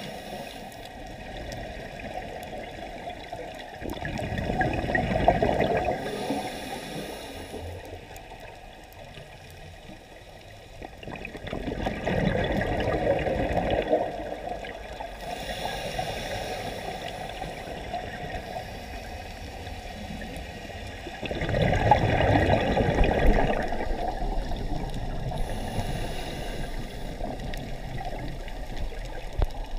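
Scuba diver breathing through a regulator underwater: exhaled bubbles rush out three times, each for two to three seconds, with quieter steady hiss between.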